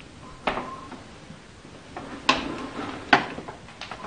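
Slow footsteps on a hard corridor floor: three sharp, irregularly spaced steps, the loudest near the end.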